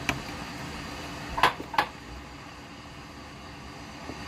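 Hands slapping and rubbing butter onto raw turkey skin: a short wet smack at the start and two louder ones close together about a second and a half in, over a steady low kitchen hum like a fan.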